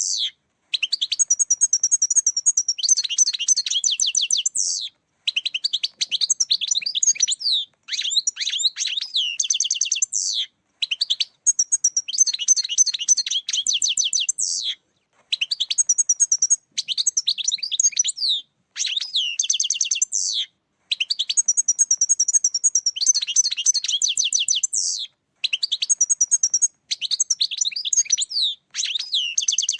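European goldfinch song: rapid, tinkling twittering phrases of one to four seconds each, repeated about ten times with brief pauses between them.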